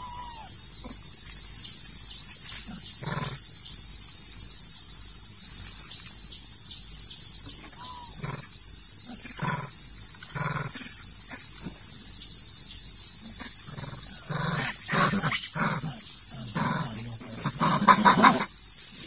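Macaques giving short, harsh grunting and barking calls, sparse at first, then louder and more frequent, with a quick cluster of threat calls near the end as one macaque lunges. A steady high insect drone runs underneath.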